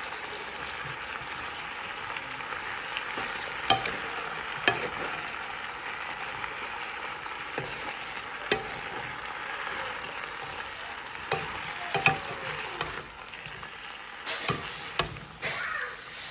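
Purple cabbage and squash sizzling in oil in a pan: a steady frying hiss, broken by a dozen or so sharp clicks of a utensil against the pan as they are stirred.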